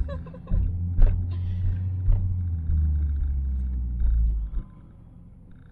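Car cabin rumble of the engine and the wet road while driving, with a few knocks or bumps. About four and a half seconds in, the rumble drops away suddenly to a much quieter hum.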